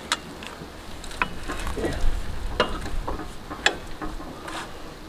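Scattered metallic clicks and scraping from a wrench working on an engine that is being turned over by hand, about five sharp clicks with handling noise between them.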